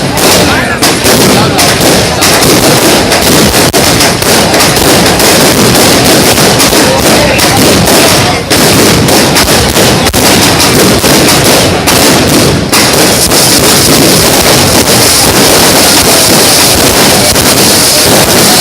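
Fireworks display: a dense, near-continuous barrage of loud bangs and cracks. About 13 s in it thickens into a steadier hissing crackle.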